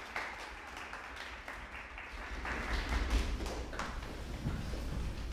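Audience applause thinning out and dying away over the first two seconds, then a low rumble with a few scattered knocks and shuffles.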